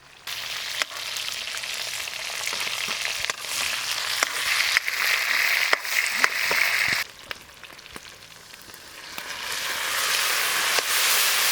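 Food sizzling in hot oil in a cooking pan, with scattered sharp pops. The sizzle starts suddenly, dies down about seven seconds in, then swells again near the end.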